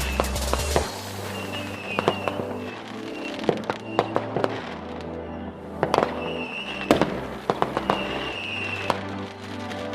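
New Year's fireworks going off in scattered sharp bangs and crackles, the loudest a little past halfway, with a few short high whistles, over background music with a steady bass.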